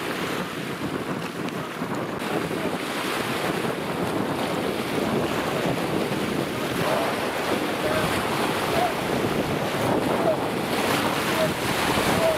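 Wind buffeting the microphone over a choppy sea, with small waves washing steadily.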